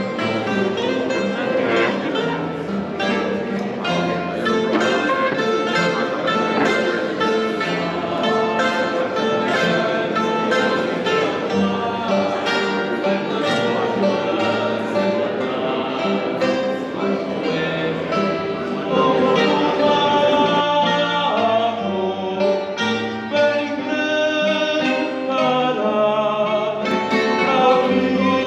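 Music with plucked guitar and a singing voice, running steadily throughout.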